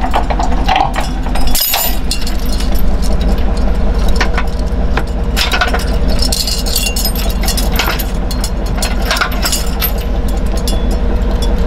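Trailer safety chains clinking and rattling in irregular bursts as they are hooked to a pickup truck's hitch, over the steady low hum of the truck's engine idling.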